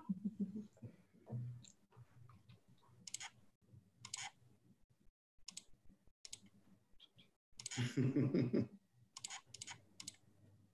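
Faint clicks and short hissing bursts from open call microphones, with a brief, low murmur of a voice about eight seconds in.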